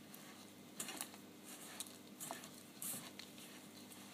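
Hands kneading crumbly biscuit dough of flour, sugar, eggs and softened butter in a stainless steel bowl: faint, scattered soft crackles and light taps as the fingers squeeze the mixture and brush the bowl.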